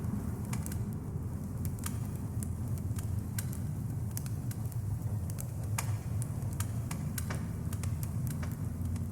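Dark ambient music: a steady low droning hum with sparse crackles scattered through it.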